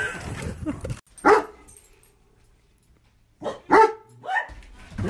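A dog barking: a single bark about a second in, then three more barks in quick succession about three and a half seconds in.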